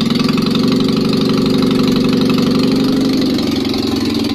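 Rebuilt Citroën 2CV air-cooled flat-twin engine (652 cc conversion) running with no exhaust fitted, on choke: a loud, raw, rapid, steady run from the open exhaust ports. It is the engine's trial run on a newly fitted 123 electronic ignition.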